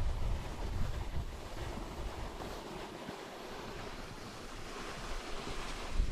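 Wind buffeting the camera's microphone at riding speed, around 30 km/h, with the hiss of snowboards sliding over packed snow. The low buffeting eases about halfway through, and the sliding hiss grows near the end.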